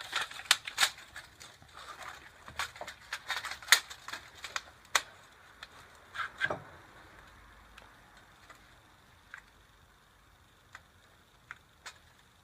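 Sharp clicks and light metallic rattles, dense for the first five seconds and then thinning to a few faint ticks: a tape measure being handled while the motorcycle chain is pushed down and up to measure its slack.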